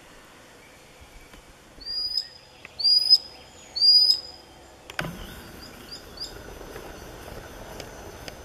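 Common sandpiper calling: three loud, high rising calls about a second apart, then a few quicker, fainter calls of the same kind.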